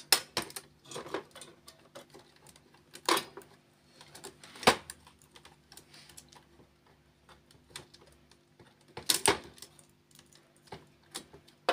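Plastic parts of an HP LaserJet Pro 500 MFP M525 fuser assembly clicking and knocking as they are handled and worked loose. The clicks come scattered and irregular, with the sharpest one about five seconds in and small clusters near three and nine seconds, over a faint steady hum.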